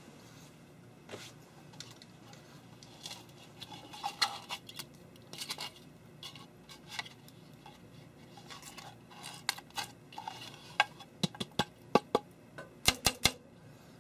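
Handling noise from a hard plastic 3D-printed hopper being picked up and turned in the hands: rustling and scattered clicks, with a run of sharp taps in the last few seconds.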